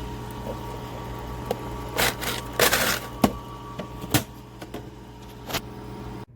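A steady mechanical hum with scattered clicks and short rattles, the loudest rattles about two to three seconds in; the hum drops away suddenly near the end.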